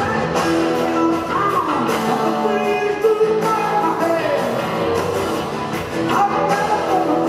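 Live rock band playing, with a man singing lead over electric guitar and drums.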